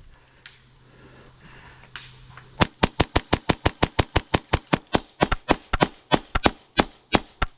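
HPA-powered Novritsch SSP5 airsoft pistol fired rapidly: after a short lull, some two dozen sharp, loud shots come at about five a second and stop just before the end.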